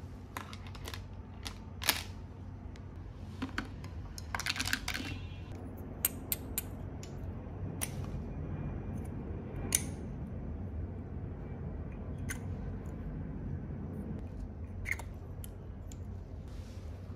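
Scattered sharp clicks and taps of small hard plastic toy pieces being handled: toy lipstick tubes with clear plastic caps against a plastic toy vanity. Around four to five seconds in there is a quick run of rattling clicks.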